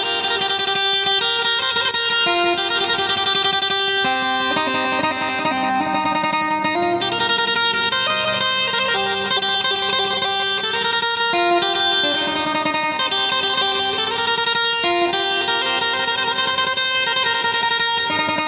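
Phin, the Thai plucked lute, playing a continuous melody of plucked notes; from about five seconds in a low note is held under the tune like a drone.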